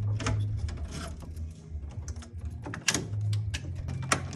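Scattered light clicks and taps of wire and tools being handled at a combination arc-fault circuit breaker in an electrical panel, with two sharper clicks near the end, over a low steady hum.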